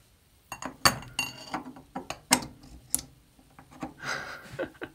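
Sharp clicks and metallic clinks as a small turned brass part is worked loose from a 5C collet in a Taig lathe headstock, one clink ringing briefly about a second in. A soft rustle of handling follows near the end.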